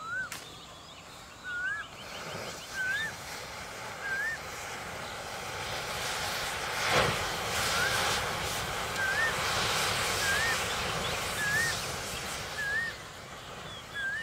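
A mass of match heads flaring and burning, a hiss that builds, peaks sharply about seven seconds in with crackling, then eases. Over it a bird repeats a short upslurred whistle roughly once a second.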